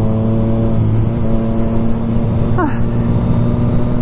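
Triumph Street Triple 765 RS inline-three engine running at steady cruising revs, heard from the rider's seat as an even, unchanging engine note.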